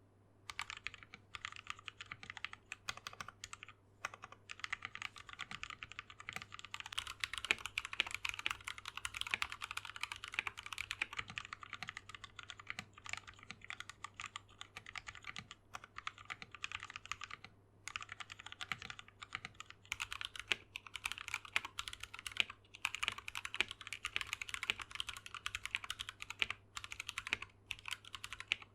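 Fast, continuous typing on a mechanical keyboard: a dense stream of keystroke clacks with a few brief pauses.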